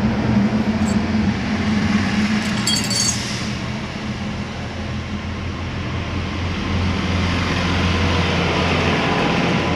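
Small metal sewing-machine parts clinking once as they are handled, a short bright chink about three seconds in, over a steady humming background noise.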